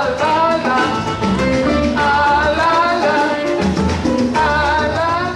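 Background music with a singing voice over a steady percussion beat.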